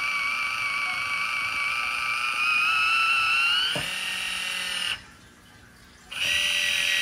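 Kitchen Mama Orbit One electric can opener's small motor running with a steady whine as it travels around the rim of a large can, cutting the lid. The pitch rises a little about three and a half seconds in, with a click just after; the motor cuts out about five seconds in and starts again a second later with a different tone.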